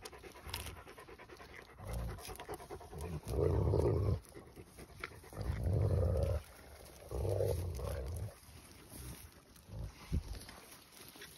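Akbash dogs panting and breathing heavily close to the microphone, with three louder stretches of about a second each in the middle.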